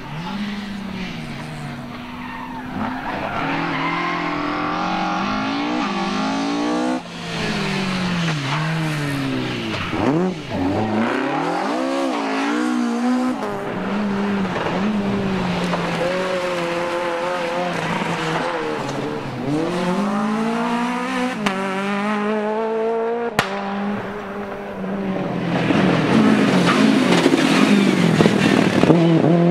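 Rally cars driven flat out one after another, among them a Mk2 Ford Escort, a Renault Clio and a Toyota Corolla WRC. Their engines rev high and the pitch drops sharply at each gear change, then climbs again. The sound breaks off abruptly as one car gives way to the next.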